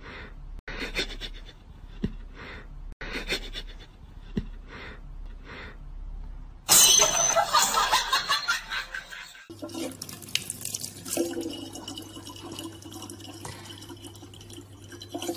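A thin stream of water from a tap running steadily into a plastic bottle, starting about nine and a half seconds in. Before it there is a loud noisy burst lasting a few seconds, and before that soft sounds repeating about every two-thirds of a second.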